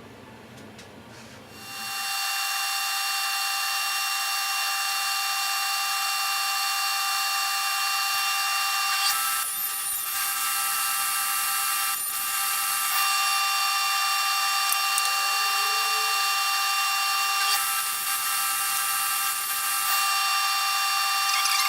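Table saw motor starting about two seconds in and running with a steady high whine, its tone shifting a few times.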